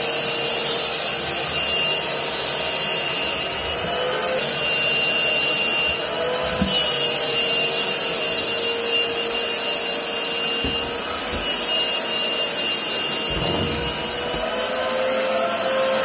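Shop vacuum running steadily, with air hissing through its narrow hose. The motor's pitch dips and rises slightly a few times as the hose takes in small laundry items, with a few knocks, the sharpest about six and a half seconds in.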